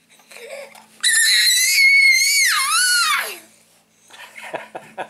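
Baby's high-pitched scream, held at a steady pitch for about two seconds, then wavering and sliding down before it stops. A few soft clicks follow near the end.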